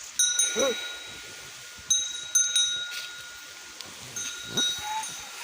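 A metal bell rings with several separate strikes, each note ringing on for a moment, with a couple of short animal calls between them.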